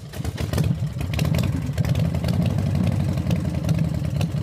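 GMC Acadia's engine running steadily, with fast ticking on top and the level climbing over the first second. The car now runs after its no-crank, no-start fault.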